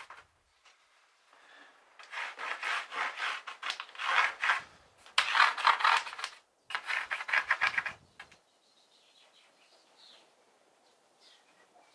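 Scratchy rubbing and scraping of wood on plywood as a thin wooden batten is pressed and slid along a row of nails to fair the rudder's outline. It comes in about four rough strokes, starting about two seconds in and stopping about eight seconds in.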